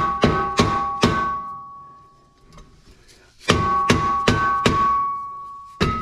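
Hammer blows on a Subaru Forester's rusted rear wheel hub and axle end, about three a second, each leaving the steel ringing. There are four blows, a pause of about two seconds, then four more and one near the end.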